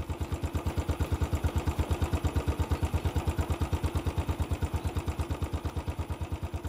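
Motorcycle engine idling with a steady, even low beat.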